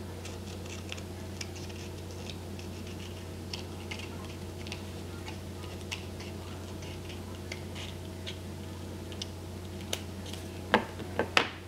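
Small scissors snipping through a sheet of nail wraps: a run of light, irregular clicks over a steady low electrical hum. Near the end come a few louder, sharper clicks.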